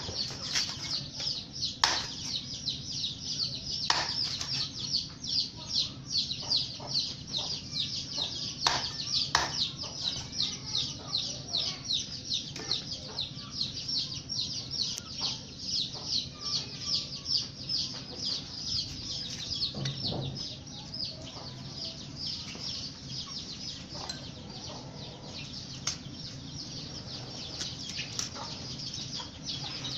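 Birds chirping rapidly and without pause, high-pitched, with sharp knocks of a knife cutting banana stalk on a stone block every few seconds in the first ten seconds. A low steady hum runs underneath.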